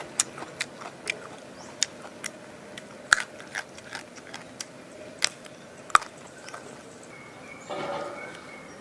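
A person biting and chewing a frog: irregular sharp crunches and clicks, the loudest about three and six seconds in.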